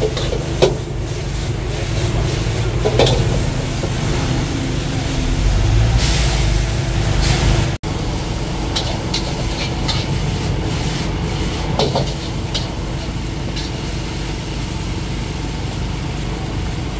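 Gas wok burner running with a steady low rumble under a carbon-steel wok while noodles are stir-fried. A metal ladle and spatula clank and scrape against the wok now and then. A louder sizzling hiss swells for a couple of seconds about six seconds in.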